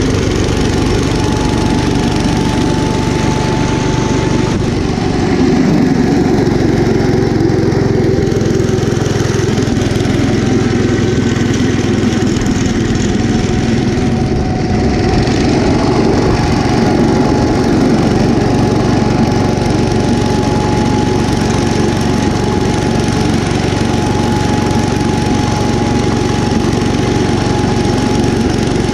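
Kohler K241 10 hp single-cylinder engine of a 1972 Gravely Commercial 10A walk-behind tractor running steadily under load, driving its snowblower through deep snow. A thin steady whine sits over the engine note.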